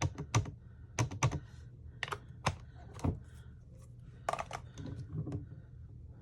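Irregular light tapping and clicking, about a dozen sharp taps, as a rubber stamp is inked by tapping it against an ink pad and pressed onto card.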